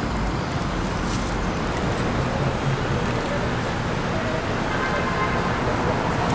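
Steady city street traffic: cars and buses running and idling, an even noise with no single event standing out. A deep low rumble is heavier at first and eases about a second and a half in.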